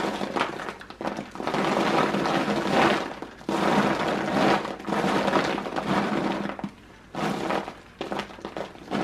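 Worms and goat manure being tipped from a plastic bucket into a compost bin lined with shredded paper, then scooped out by hand: a rustling, scraping noise that comes in several stretches with short pauses between them.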